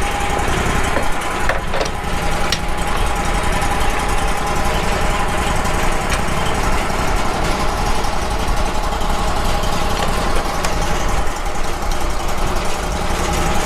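Wood-Mizer LT35 HD portable band sawmill's engine running steadily at idle, with a steady whine over it and a few light clicks.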